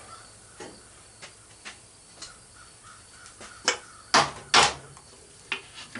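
Parts of a chipper shredder being worked loose by hand: a few light clicks and taps, then two loud, harsh grating snaps about half a second apart as a tab on the part breaks off.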